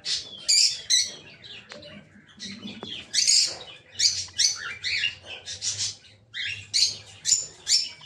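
Small cage birds chirping: a quick, uneven string of short, high chirps, some overlapping.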